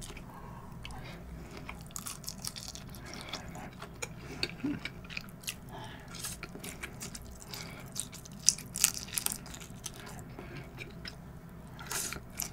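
A person chewing large raw-shrimp nigiri sushi close to the microphone: soft, wet mouth sounds and small smacks, with a few louder sharp clicks about eight and a half to nine seconds in.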